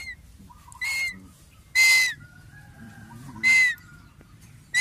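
A bird of prey calling: a series of shrill whistled screams, about one a second, each a short steady note that drops off at the end.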